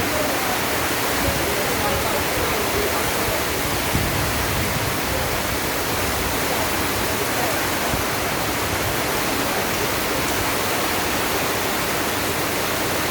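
Heavy cyclone rain pouring down in a steady, unbroken rush.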